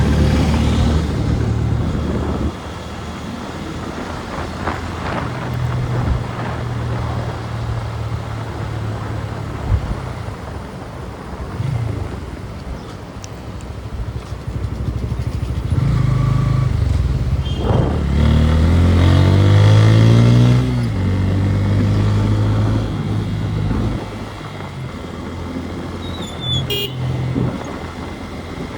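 Motorcycle engine running while being ridden, its pitch rising as it accelerates about two-thirds of the way through. A brief high tone sounds near the end.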